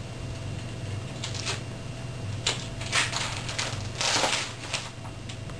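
Glossy magazine pages rustling and swishing as a toddler grabs, lifts and turns them: a run of short crinkles, the loudest about three to four and a half seconds in.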